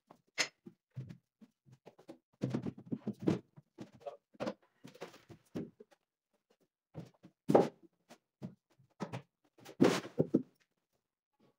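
Irregular knocks, bumps and clatter of laminated board cabinets being carried and fitted against a wall, with sharp knocks about seven and a half seconds in and again around ten seconds.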